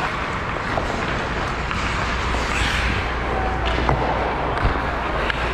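Hockey skates scraping and gliding on the ice, heard from a player-worn GoPro, with a steady low rumble under it. A few sharp clicks come about four seconds in.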